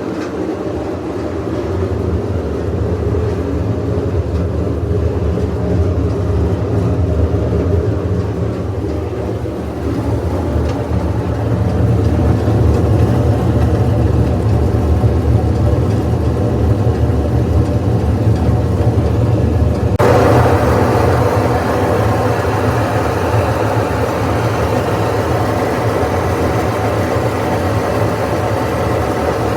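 GE washing machine running with a loud, steady drone like an airplane, which the owner puts down to broken drum bearings. About twenty seconds in the sound turns suddenly harsher and brighter.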